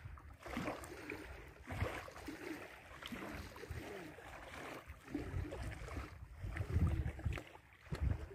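Wind gusting on the microphone at the water's edge, rumbling unevenly and strongest a little after the middle, with faint distant voices now and then.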